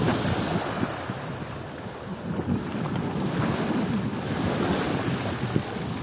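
Small sea waves washing up onto a sandy beach, with wind buffeting the microphone.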